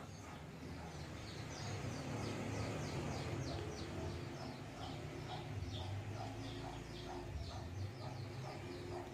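Small birds chirping in a rapid run of short falling notes, several a second, over a steady low hum.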